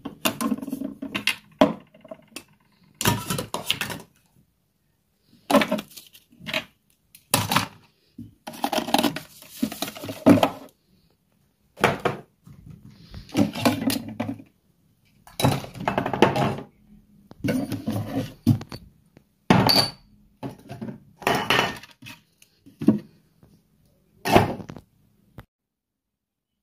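Dishes and kitchenware being handled and set down: a long series of separate clatters, clinks and knocks with short silent gaps between them.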